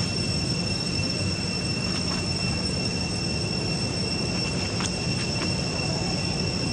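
Steady high-pitched insect drone, two even whining tones held without a break, with a few faint ticks.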